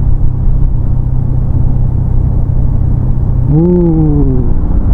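Motorcycle engine running steadily under the low rumble of wind and road noise while riding. About three and a half seconds in its tone rises briefly, then falls away.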